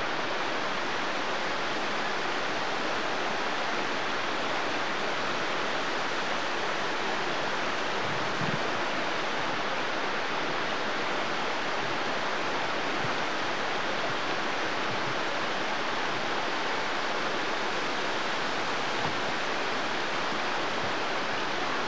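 Steady rush of a waterfall pouring over rocks.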